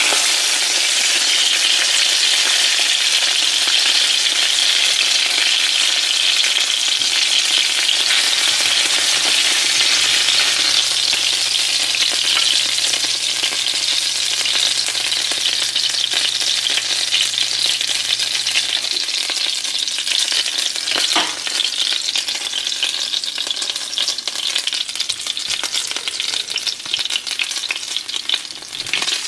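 Breaded fish fillets sizzling in hot oil in a nonstick frying pan: a steady crackling hiss. The sizzle thins in the second half once the fillets are lifted out and only crumbs are left frying.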